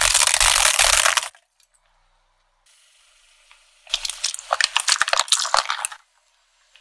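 Aluminium drink cans crushed flat under a car tyre: a run of sharp crackling and crinkling metal, starting about four seconds in and lasting about two seconds. A loud crunching burst with a low rumble fills the first second.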